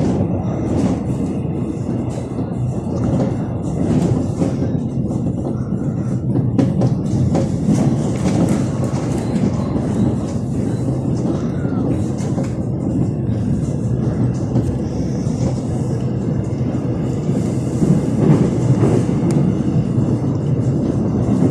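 Cabin noise of a Gyeongui–Jungang Line electric commuter train running between stations: a steady low rumble of wheels on rail with scattered clicks from the track.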